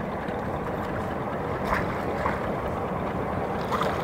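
Steady noise of a small boat out on the lake, even and unbroken, with a few faint knocks.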